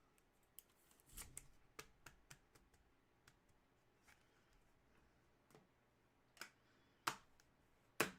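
Faint, scattered clicks and taps from handling trading cards and their packaging. There is a small cluster about a second in, and sharper single clicks about seven and eight seconds in.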